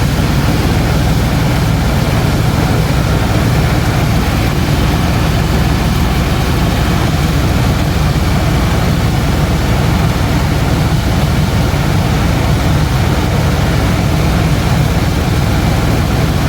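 Helicopter engine and rotor running steadily in flight: a loud, even, low drone that does not change.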